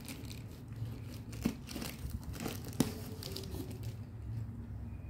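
Cardboard box being cut open with a snap-off utility knife and its flaps pulled back, the cardboard and plastic packing rustling and crinkling. There are two sharper clicks, about a second and a half and three seconds in.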